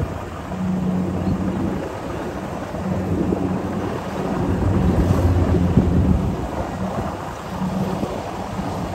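Kubota DC-70 combine harvester's diesel engine running as it cuts rice, a steady hum that swells about halfway through. Under it, a low rumble of wind on the microphone.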